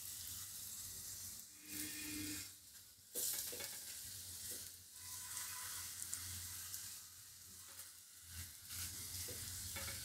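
Oil sizzling steadily under a radish-stuffed paratha as it shallow-fries on a flat griddle (tawa), dipping briefly a few times.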